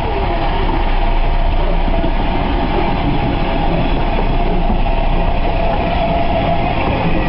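Steam train behind Bulleid West Country Class Pacific Blackmoor Vale running on the line: a steady rumble of the train on the rails with some clickety-clack.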